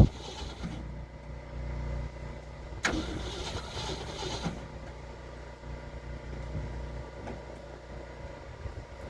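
1972 Ford F-250 pickup engine idling low, running with no throttle. A sharp click about three seconds in.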